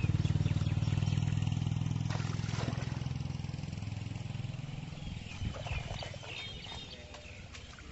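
A small engine running with a low, even pulsing, growing steadily fainter until it is barely heard near the end.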